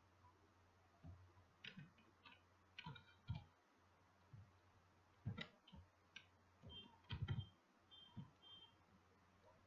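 Faint, irregular clicks and taps of a computer keyboard and mouse, in a few small clusters.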